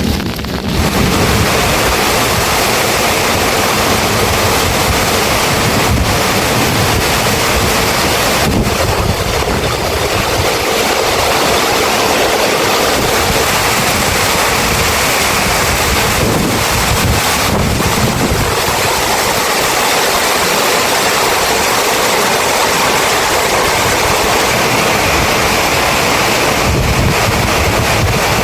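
Heavy rain falling: a loud, steady, dense hiss with no let-up.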